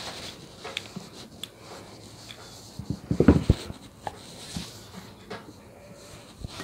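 Light clicks and knocks of hand tools and small brass parts being handled on a tabletop, with a louder cluster of knocks about three seconds in.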